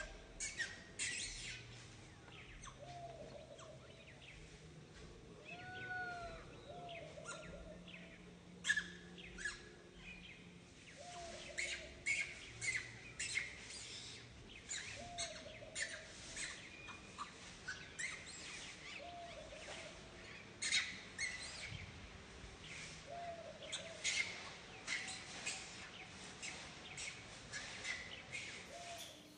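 Infant long-tailed macaque crying: many short, sharp high squeals, with a lower, short whimpering call repeated every few seconds.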